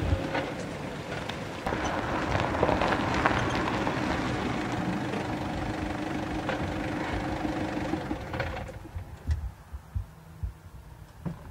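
A Mitsubishi Pajero SUV running, its engine hum under road noise. From about eight and a half seconds in it is quieter, idling, with a few low thumps.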